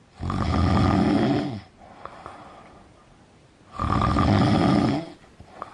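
A person snoring: two loud, fluttering snores of about a second and a half each, some three and a half seconds apart, with quieter breathing between them.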